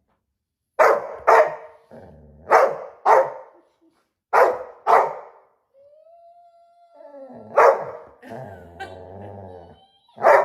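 Dog barking: three pairs of short barks in the first five seconds, then a whine that rises and holds, followed by a few more barks.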